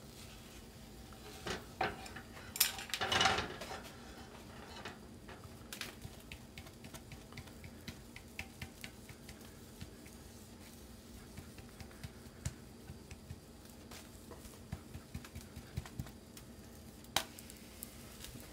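Wooden chopsticks and a nonstick frying pan clattering as an omelet is worked and the pan handled. A burst of scraping and knocks comes about two to four seconds in, then scattered light taps, and a sharp click near the end.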